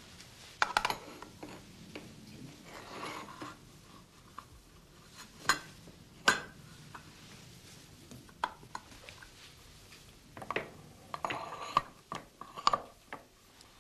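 Scattered light metallic clinks and knocks of tin cans being handled and fitted into a hand-cranked can-sealing machine, at irregular intervals rather than in a steady cranking rhythm.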